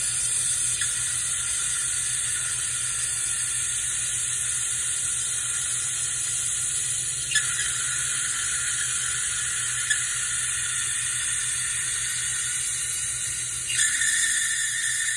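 Compressed shop air hissing steadily through a venturi vacuum coolant-refill tool, pulling a vacuum on the engine's drained cooling system before refilling. The hiss grows a little louder near the end.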